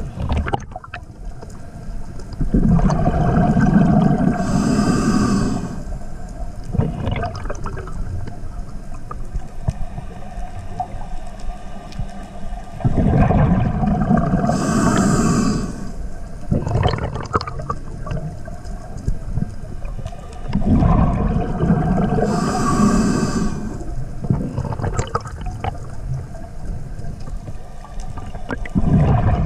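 Scuba diver breathing through a regulator underwater: a loud rushing burst of exhaled bubbles every eight to ten seconds, with fainter breathing sounds in between.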